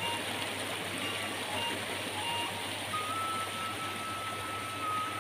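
Small rocky stream rushing over stones in a steady, even rush. Over it runs a thin tune of held whistle-like notes, one note held for about two seconds near the end.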